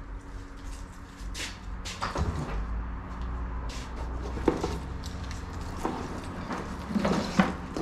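Handling noise as a wiring harness is lifted out of a cardboard box: rustling, clatter and scattered knocks, with the sharpest knocks about halfway through and near the end.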